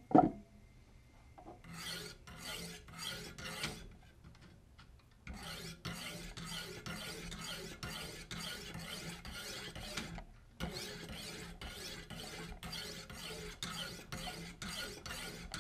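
Wicked Edge guided sharpener's coarse 50-grit diamond stones rasping along the edge of a carbon steel Sabatier chef's knife, stroke after stroke, about two a second with a couple of short pauses. A sharp knock sounds right at the start.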